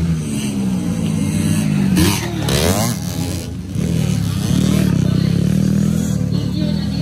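Dirt bike engine revving as the bike rides past, the pitch rising and falling with the throttle and climbing steeply about two and a half seconds in.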